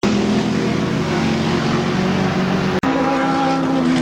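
Classic single-seat racing car engine running loudly at a steady pitch. A brief dropout comes near three seconds in, and the engine resumes at a slightly different pitch.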